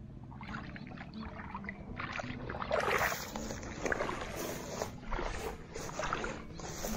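Water sloshing and splashing as a person wades through shallow water and reaches into it by hand, irregular and louder from about two seconds in.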